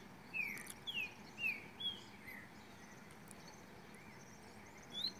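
A small songbird calling: a series of about five short whistled notes, each sliding down in pitch, roughly two a second, then a pause. Right at the end a higher rising note starts a louder song.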